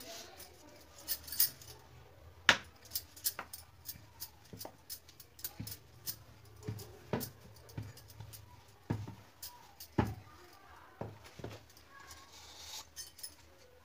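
Irregular light clicks and knocks of a wooden rolling pin and board as puri dough is rolled out, with bangles clinking on the wrist.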